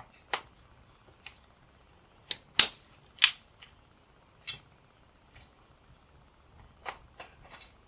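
Dry twigs snapped by hand, one sharp crack after another, about ten in all, the two loudest about two and a half and three and a quarter seconds in, as kindling is broken for a small wood-burning camp stove.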